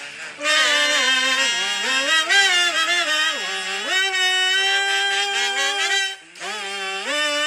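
Music carried by one melody line that bends and slides between notes, holding one long note in the middle and breaking off briefly about six seconds in.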